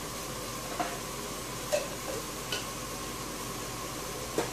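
Spinach and onion sizzling steadily in a steel cooking pot, with four light knocks or clicks spread through it.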